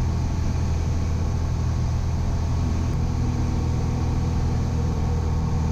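Steady drone of a Piper Arrow's piston engine and propeller in flight, heard inside the cockpit. A slightly higher hum joins the drone about halfway through.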